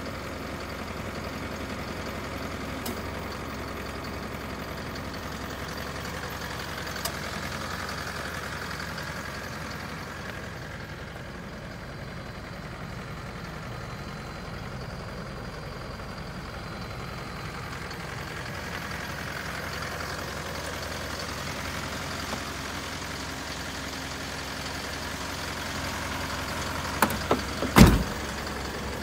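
Isuzu Elf truck's 4JJ1 four-cylinder turbodiesel idling steadily. Near the end a door clunks heavily, the loudest sound.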